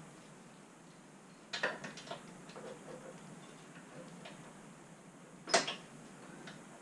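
Scooter parts being handled while unboxing: scattered clicks and knocks, a small cluster about a second and a half in, a few light taps, and one sharp knock near the end.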